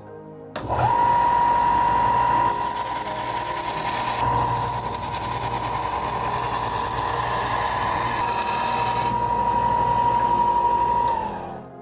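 An electric power tool's motor starts up with a quickly rising whine, runs steadily for about ten seconds with its hiss getting brighter and duller a few times, then winds down and stops.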